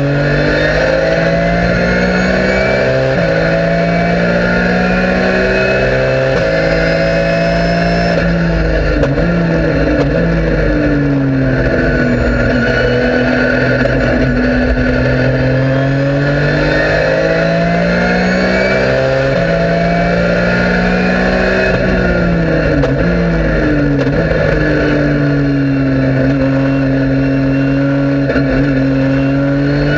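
Porsche 997 GT3 Cup race car's flat-six engine heard from inside the cabin while lapping a track. It revs up through the gears with quick step-downs in pitch at each upshift, falls back in ragged steps twice as the car slows and downshifts for corners, and climbs again near the end.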